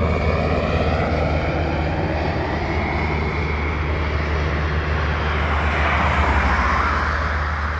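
Aircraft running near the runway: a steady engine drone with tones that slide down in pitch, swelling into a rush of noise about six seconds in.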